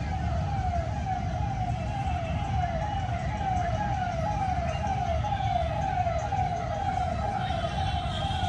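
A siren-like electronic tone that falls in pitch and repeats about twice a second, over a steady low rumble.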